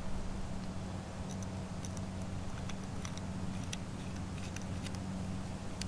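Faint, scattered light ticks and clicks of small metal parts being handled as the shuttle end cap is screwed onto the pistol's aluminium receiver, over a steady low hum.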